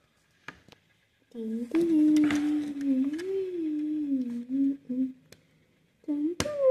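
A person humming a slow, wavering tune for about four seconds, starting a little over a second in. Small plastic clicks come from model railway track pieces being fitted together, with a sharper click near the end.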